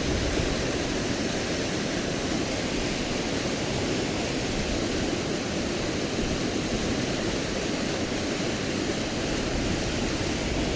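A river in flood rushing steadily, an even, full noise of fast-flowing water.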